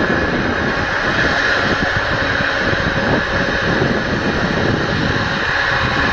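Twin GE90 turbofan engines of a Boeing 777-300ER running steadily as the jet rolls along the runway: an even, unbroken jet noise with a faint whine in it.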